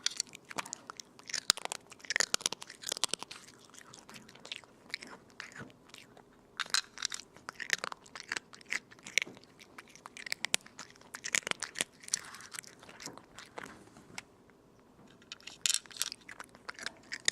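A cat chewing crunchy food in a run of quick, irregular crunches, with a short pause near the end.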